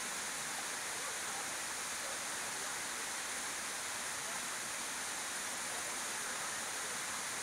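Steady, even rushing hiss with no distinct sounds in it.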